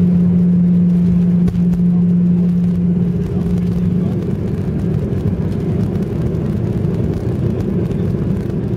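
Airliner cabin noise as the plane rolls along the runway: a loud, steady rumble of engines and wheels, with a steady hum that fades away about three seconds in.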